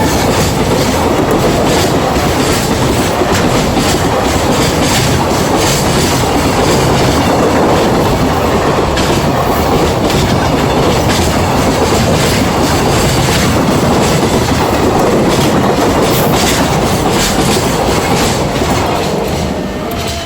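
Container freight train, the Fukuyama Rail Express hauled by a JR Freight EF210 'Momotaro' electric locomotive, running past with a steady loud rumble and wheels clattering over the rail joints. The noise eases slightly near the end as the last wagons go by.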